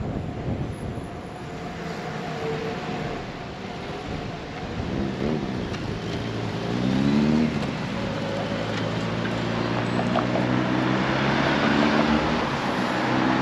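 A motor engine revs up twice, about five and seven seconds in, then runs steadily and grows slightly louder, over steady street noise.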